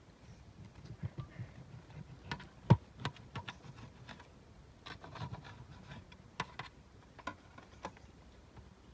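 Knife slicing roasted beef on a metal tray, with irregular clicks and taps as the blade and a spoon meet the tray. One sharp knock just under three seconds in is the loudest.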